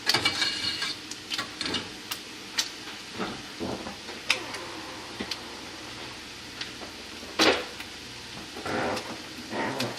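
Scattered clicks, taps and knocks of kitchen utensils and containers being handled, with a short ringing clatter at the start and a louder knock about seven and a half seconds in.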